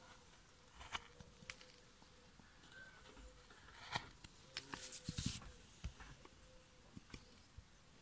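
Faint cuts of a hand carving gouge into the edge of a wooden board: short clicks and scrapes as chips break away, with a busier stretch of clicks and knocks about five seconds in.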